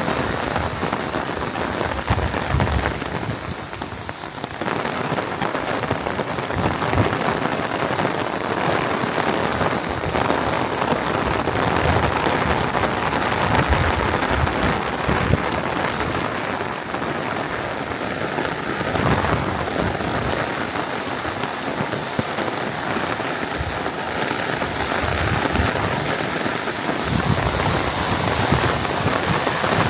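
Heavy rain falling steadily, a dense unbroken hiss of downpour.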